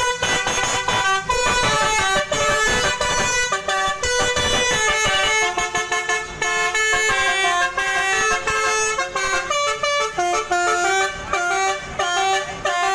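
Indonesian 'telolet' basuri bus horn, a twelve-trumpet air horn set, playing a melody: a rapid run of loud held notes stepping up and down in pitch without a break.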